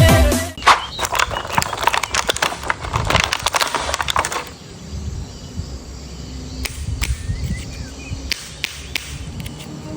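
Crackling and clicking of handled plastic, dense for the first few seconds and then sparse, single clicks.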